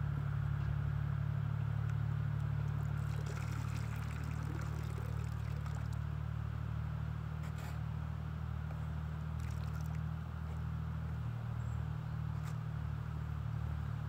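Steady low hum of a hand-made RC fan boat's motor and air propeller running on the water, easing slightly after about four seconds.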